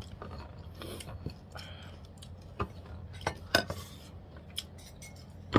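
Spoon and fork clinking and scraping on a plate while eating, with scattered clicks and a few louder clinks about two and a half to four seconds in.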